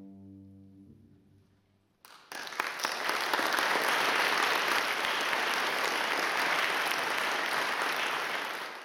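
The final held chord of a cello and double bass ensemble fades away, then about two seconds in an audience breaks into steady applause that lasts to the end.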